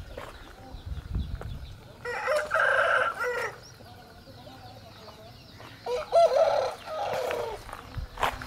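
Country chicken (Aseel) rooster crowing twice, each crow about a second and a half long. A sharp click comes near the end.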